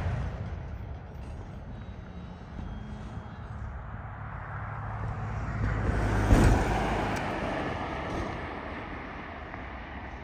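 Rolling rumble of a freight train's autorack cars fading quickly as the train pulls away, leaving a low steady rumble. About six seconds in, a road vehicle passes close by, swelling up and fading away.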